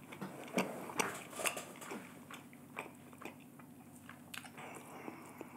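Close-miked chewing of sauced fried chicken: irregular crunches and wet mouth clicks, the loudest in the first couple of seconds.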